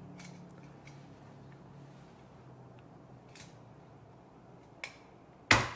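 A small handheld paper stapler firing staples through a couch's fabric dust cover into the wooden frame: a few sharp snaps spread out, the loudest just before the end.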